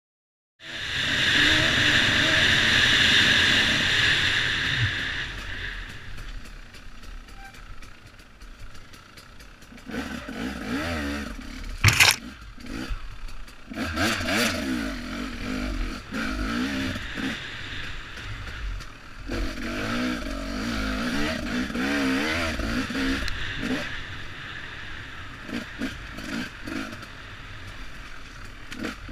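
2015 Husqvarna TE300 single-cylinder two-stroke enduro engine revving up and down as the bike rides a rough forest trail, with clatter from the bike. A single sharp, loud knock comes about twelve seconds in.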